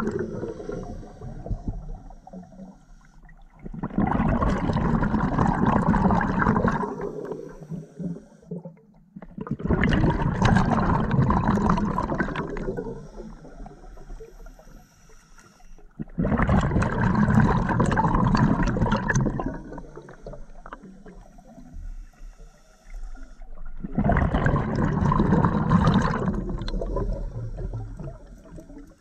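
Underwater exhaust bubbles from a scuba diver's open-circuit regulator, one burst of gurgling rush with each exhaled breath. Four breaths come about every six to eight seconds, each lasting around three seconds, with quieter gaps between.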